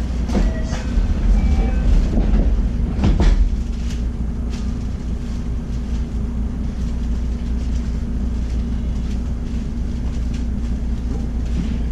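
Electric passenger train running at speed, heard from inside the car: a steady low rumble and hum, with a few sharp clacks from the wheels in the first few seconds.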